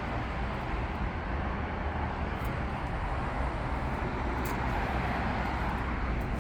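Steady outdoor background noise with a low rumble, without distinct events.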